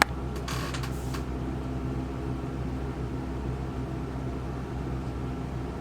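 A steady low electrical hum with a faint fan-like hiss. There is a short scratchy rustle about half a second in.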